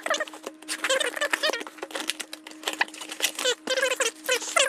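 Packaging crinkling and rustling in rapid, irregular crackles as a box's contents are unwrapped and handled by hand, over a faint steady hum.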